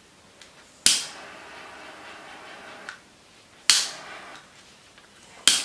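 Butane jet torch lighter clicking as its piezo igniter sparks, then the hiss of its jet flame for about two seconds. It is clicked and lit again a little later with a shorter hiss, and clicked a third time near the end.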